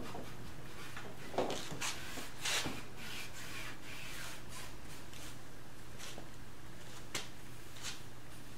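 Gloved hand with a rag rubbing wood stain onto a sanded wooden cabinet top: a few short wiping strokes in the first three seconds, then quieter rubbing, with one light click near the end, over a steady low hum.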